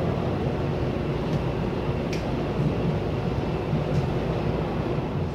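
Passenger train running, heard on board as a steady low rumble with a few faint ticks.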